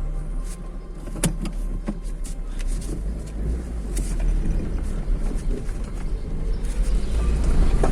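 Daewoo Lanos heard from inside while driving slowly: a steady engine and road rumble that grows louder near the end, with scattered sharp clicks and knocks. The steering squeak being checked for is not heard.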